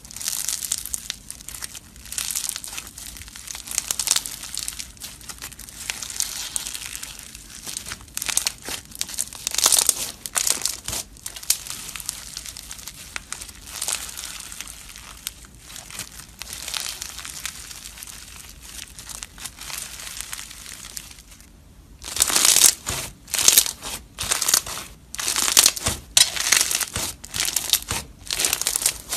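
Pink floam, a slime full of small foam beads, crackling and popping as hands squeeze, fold and stretch it. There is a dense, irregular crinkle throughout, with louder, sharper crunches near the end as it is pressed down.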